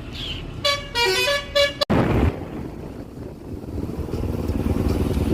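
A vehicle horn honking in four short quick blasts, then, after an abrupt cut, the steady rumble of a moving road vehicle's engine and road noise, growing louder near the end.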